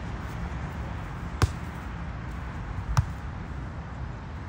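A volleyball smacked twice by a player's hands or arms, about a second and a half apart, as in a rally, over a steady low background rumble.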